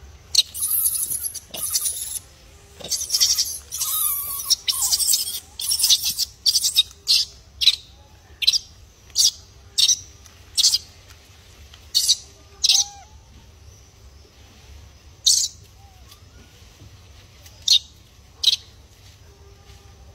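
A series of short, high-pitched animal chirps. They come in a rapid cluster for about the first seven seconds, then roughly once a second, then only now and then.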